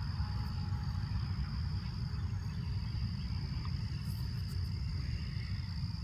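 Steady high-pitched insect chorus, one unbroken tone, over a continuous low rumble.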